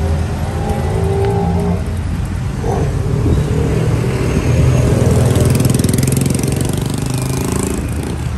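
Street traffic passing close by: motor vehicle engines, motorcycles among them, running and accelerating, loudest a little past the middle.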